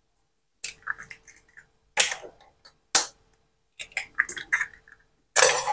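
Eggs being cracked with a knife over a glass bowl: sharp taps of the blade on the shells about once a second, each followed by a light crackle of breaking shell. A louder, longer rustling clatter near the end.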